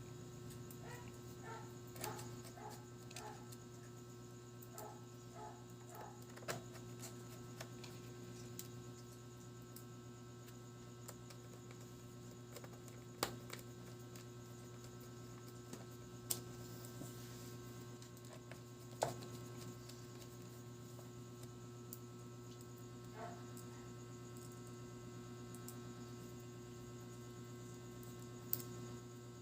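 Steady low electrical hum, with a few faint clicks scattered through.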